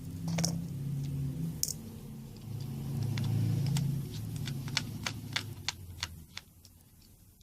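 Light clicks and taps of a small screwdriver and tiny phone screws being handled while screws come out of a phone's back frame, over a low hum that shifts in pitch and stops about six seconds in.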